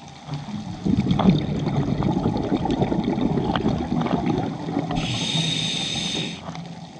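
Scuba diver breathing through a regulator underwater: a long gurgling rush of exhaled bubbles starts about a second in, and a hissing inhale comes near the end.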